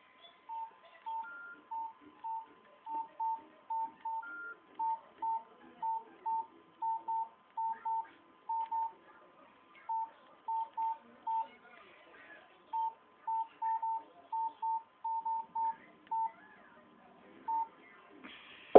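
Nokia mobile phone keypad key tones: about forty short, identical beeps as buttons are pressed at an uneven pace, often two in quick succession, with two higher-pitched beeps near the start. A faint steady tone runs beneath them.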